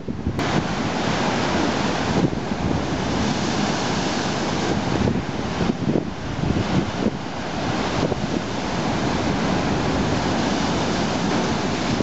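Storm waves breaking and churning over a rock breakwater, a continuous rushing surf noise that swells and eases a little, with strong wind buffeting the microphone.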